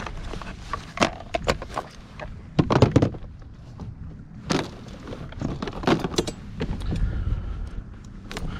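Irregular clicks, knocks and clatter of fishing gear being handled aboard a plastic kayak, including a folding measuring board being put away. The loudest knocks come about three seconds in, with further single knocks later.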